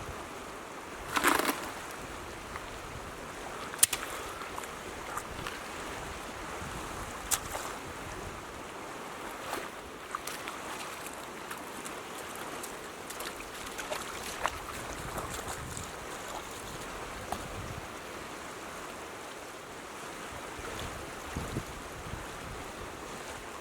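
Steady rushing of a flooded creek's current, broken by a few short, sharp clicks and knocks; the loudest click comes about four seconds in.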